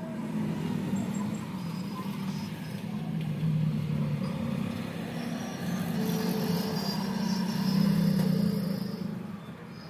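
Motor vehicle engine running close by on the road, a low steady drone that swells and fades a few times, loudest near the end.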